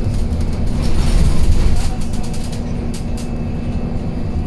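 Interior of a Scania Citywide 12LF CNG city bus on the move: its 9.3-litre Scania OC09 gas engine and drivetrain give a steady low hum and rumble that swells about a second in and eases off again, with light rattles and clicks from the cabin fittings.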